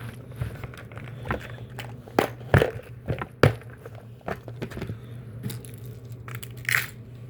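Handling noises from a plastic tackle lure case and a hard fishing lure being put away: irregular sharp clicks and knocks, the loudest about two and a half and three and a half seconds in, over a steady low hum.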